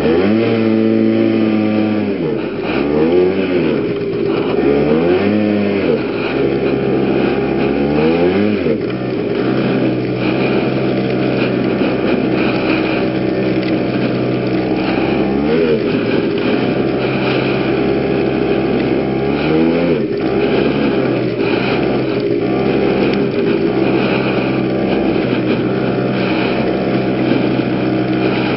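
110cc two-stroke PGO scooter engine under way. The revs rise and fall about five times in the first nine seconds, then run steadier, with a couple more brief rises later.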